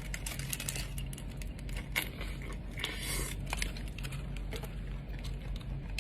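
Close-miked eating of a burrito: chewing with many small wet mouth clicks, a sharper click about two seconds in, and a crinkling rustle around three seconds in.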